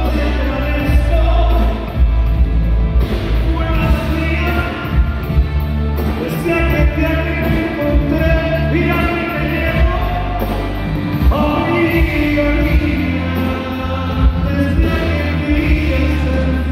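Live band music: a male singer's voice over a band with electric guitar, drums and keyboards, heard from the audience.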